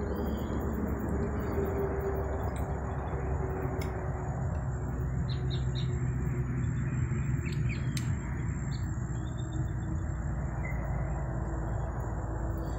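Birds chirping in short scattered calls over a steady low background noise.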